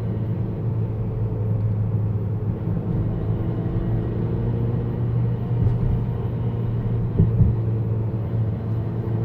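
Honda Accord 1.5-litre turbocharged four-cylinder running with a steady low drone, and a few brief knocks about five and a half and seven seconds in: the rattling noise the car is making.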